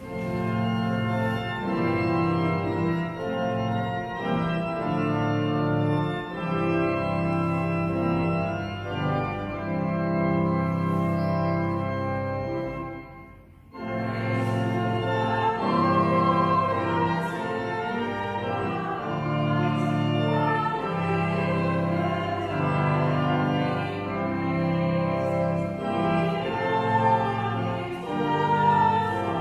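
Church organ playing a hymn in held chords, stopping briefly about thirteen seconds in and then starting again.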